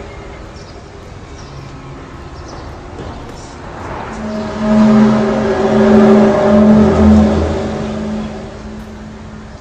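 A low, drawn-out trumpet-like tone rising out of background hiss about four seconds in, pulsing in a few long swells for about four seconds before fading. This is one of the recorded 'sky trumpet' sounds.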